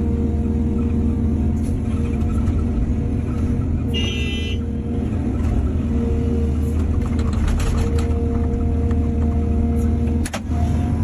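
Heavy diesel engine of an excavator running steadily, with a brief high-pitched whine about four seconds in and a run of clicks and clatter later on.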